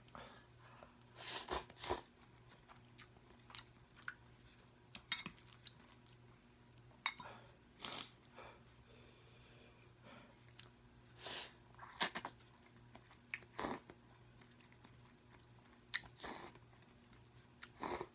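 A person eating instant noodles close to the microphone: wet chewing and mouth noises at irregular intervals, some brief clicks and some longer smacks of up to half a second.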